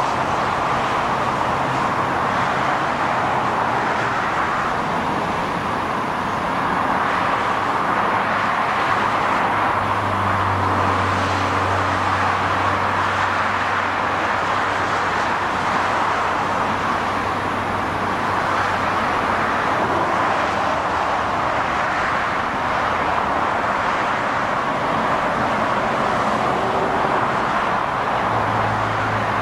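Steady noise of multi-lane freeway traffic passing below, cars and trucks on the road. A low engine drone comes in about ten seconds in and fades out around twenty seconds.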